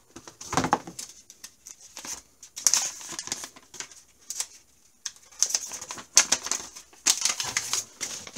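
Plastic bag and paper packaging crinkling and rustling as it is handled, in irregular bursts of crisp crackles. A dull thump comes about half a second in.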